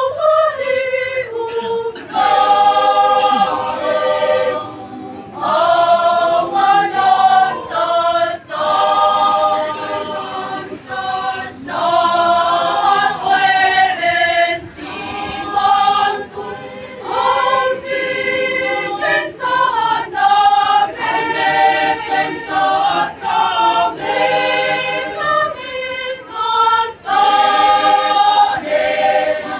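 A choir singing in several voices, in phrases a second or a few seconds long with short breaks for breath between them.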